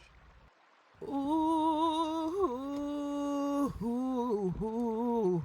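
A voice singing long, wordless held notes with a light vibrato, stepping slightly down in pitch, with a couple of brief breaks for breath; it starts after about a second of quiet.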